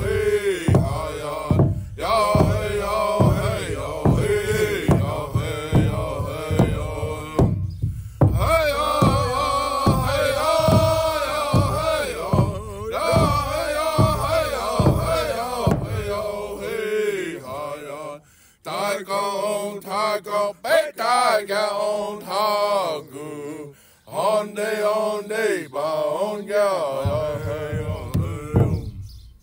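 Male voice chanting a Native American song over a steady drum beat. About two-thirds of the way through, the drum drops out and the chanting carries on alone, with short breaks between phrases.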